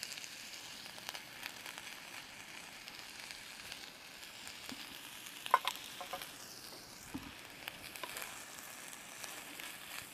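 Chicken stir fry with soy sauce and vinegar sizzling faintly and steadily in a frying pan on a camping stove, with scattered small clicks and one sharp clink about halfway through.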